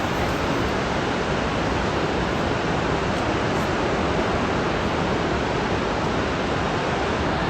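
Steady, even rushing noise that does not rise or fall.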